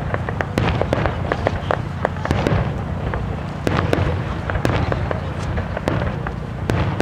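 Aerial fireworks bursting overhead: a dense run of sharp cracks and crackles, several a second, over a continuous low rumble of booms.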